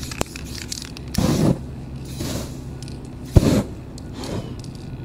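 Aerosol spray-paint can hissing in short bursts over a stencil; the two loudest come about a second in and about three and a half seconds in, the second starting with a sharp click. Flames flare over the wet paint toward the end.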